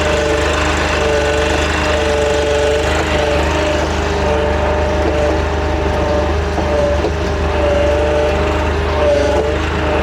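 Riding lawn mower's engine running steadily under way, with a two-note whine that drops out and comes back every second or so.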